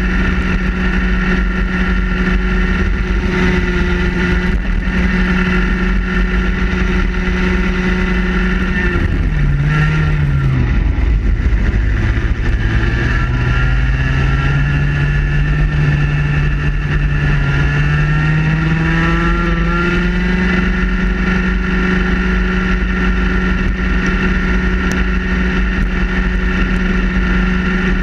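Racing kart's two-stroke engine at full throttle, heard close up on board. About nine seconds in it drops sharply in pitch as the driver lifts for a corner. It then climbs steadily back up through the revs over about ten seconds and holds at high revs to the end.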